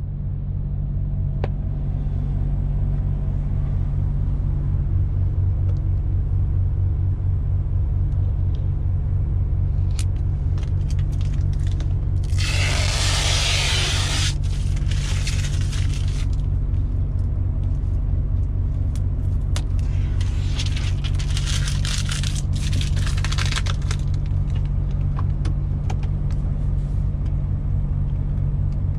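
MAN TGX 18.470 truck's diesel engine, a 12.4-litre inline six, running steadily at low revs, heard from inside the cab. About halfway through there are two loud stretches of hissing, each lasting a few seconds.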